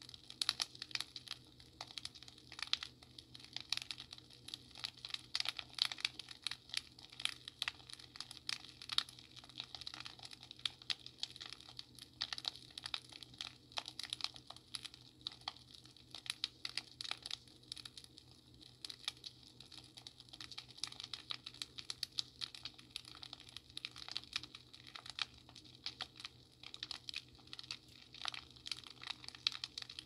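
Fireplace crackling: a dense, irregular run of small pops and snaps, several each second, with a faint steady low hum underneath.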